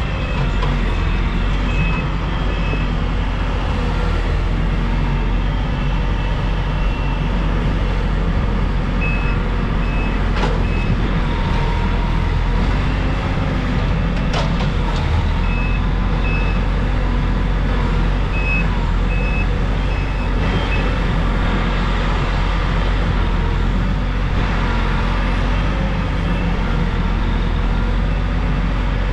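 Heavy diesel equipment running steadily under load. A back-up alarm beeps in short runs several times as a machine reverses.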